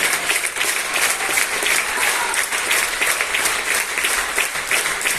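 Concert audience applauding, a steady dense clapping of many hands.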